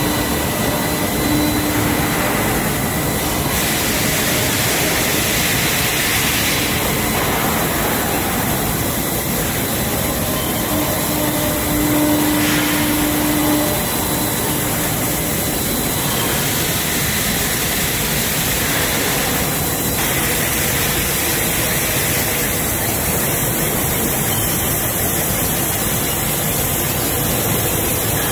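Steel pipe mill running: a loud, steady mechanical din from the forming roll stands and their drives, with a faint high whine early on.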